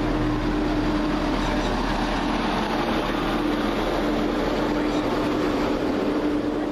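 Class 170 Turbostar diesel multiple unit running through the station: a steady, loud diesel drone with an engine hum over rumbling wheel and rail noise.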